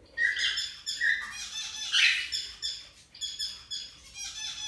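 Cockatiels calling, a run of short, harsh, repeated squawks and chirps with brief gaps between them.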